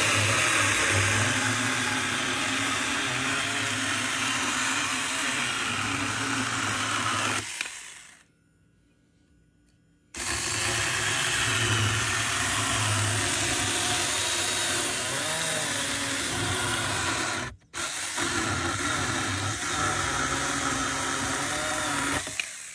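Saker 4-inch 20-volt battery-powered mini chainsaw running and cutting through a piece of driftwood. It stops twice: it winds down about a third of the way in and is silent for about two seconds, then after restarting cuts out again for a split second before running on until near the end.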